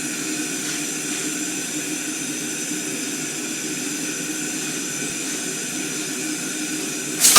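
Air hammer's motor and compressor running steadily at idle, a constant machine hum with a high whine over it. At the very end the ram starts striking in rapid blows.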